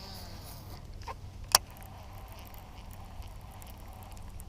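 A sharp knock about a second and a half in, with a softer click just before it, over a faint steady low hum.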